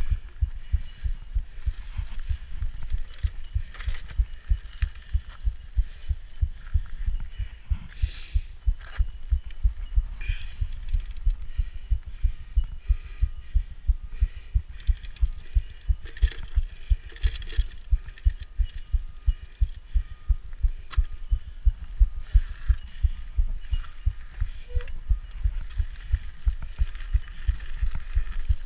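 A 1990 Peugeot Hurricane rigid mountain bike ridden on dirt singletrack, heard from a chest-mounted camera: an even run of low thumps, about two and a half a second, in time with the pedalling, over faint tyre noise and the odd click or rattle.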